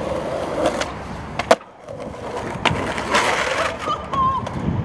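Skateboard wheels rolling on concrete, then a sharp clack of the board about a second and a half in and another about a second later, followed by more rolling.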